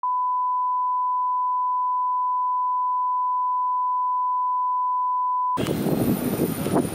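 A steady test-tone beep sounds with colour bars and stops abruptly about five and a half seconds in. It gives way to station platform noise as an electric train pulls in.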